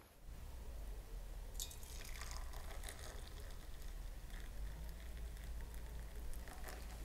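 Turkish coffee pouring from two metal cezves into a glass, a faint steady trickle of liquid.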